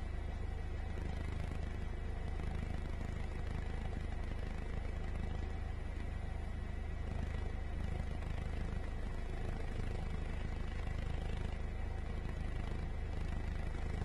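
Steady drone of a helicopter heard from inside the cabin: a deep, even rumble with a thin constant whine above it, unchanging throughout.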